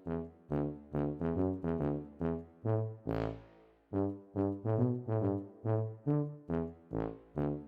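Instrumental music: a bouncy line of short, quickly fading brass-like notes, several a second, with a pause and a single crash about three seconds in.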